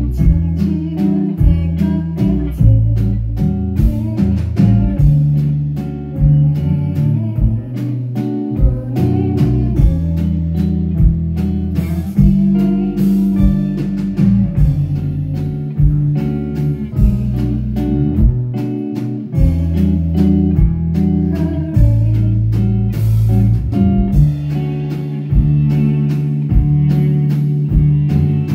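Live band playing a slow song: a woman singing over a hollow-body electric guitar, with bass notes and a steady drum beat.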